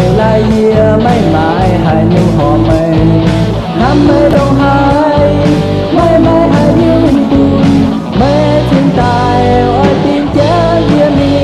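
Rock-style song playing: a lead melody that slides and bends in pitch over a steady drum beat and bass.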